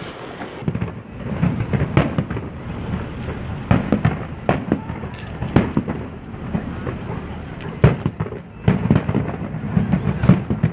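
Aerial fireworks shells bursting in an irregular run of sharp bangs, about one a second, over a continuous low rumble of echoing booms.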